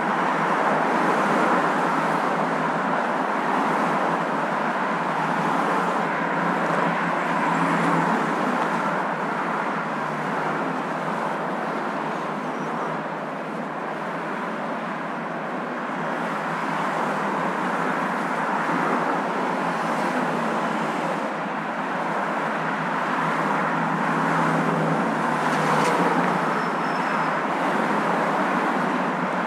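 Moving car's steady road and engine hum, an even rushing noise that swells and eases gently.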